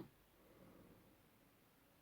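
Near silence: the pause between two snores, the previous snore cutting off right at the start.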